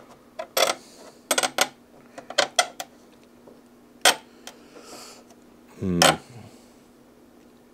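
Hard plastic clicks and knocks of a model aircraft's engine cowl being handled and pushed into place over the engine and exhaust, in small clusters, with two sharper knocks about four and six seconds in. A faint steady hum runs underneath.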